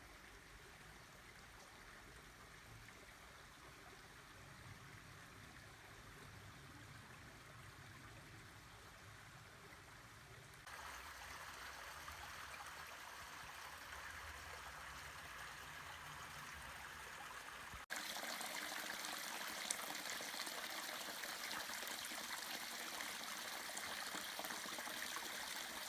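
Mountain stream water running over rocks, a steady rushing sound. It gets abruptly louder twice, about ten and eighteen seconds in, as if closer to the water each time.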